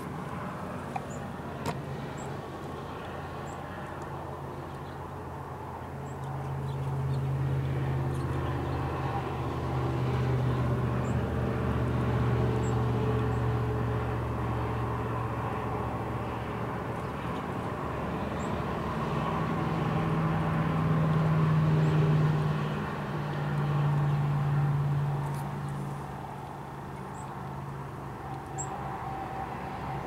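A low engine drone, out of sight, swells after a few seconds, is loudest about two-thirds of the way through, then fades away.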